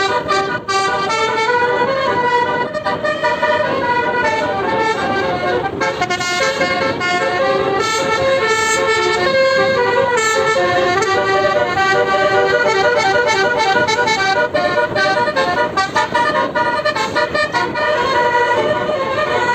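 Tour bus's Basuri 'telolet' melody horn playing a tune, several reedy horn tones sounding together and stepping quickly from note to note without a break, over a steady rumble of the bus on the road.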